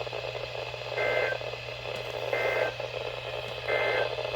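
Three short bursts of Emergency Alert System digital data tones, a rapid two-tone squawk, about a second apart: the end-of-message code that closes the warning broadcast. Heard through a weather radio receiver over steady static hiss and a low hum.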